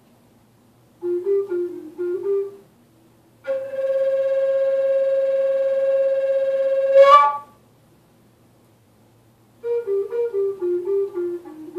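Native American flute played in slow phrases: a short figure of low notes, then one long held note that swells at its end, then a run of short notes stepping downward, with pauses between phrases.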